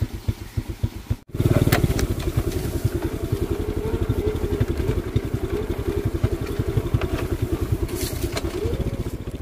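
Motorbike engine running steadily with a rapid, even firing beat, breaking off for a moment about a second in.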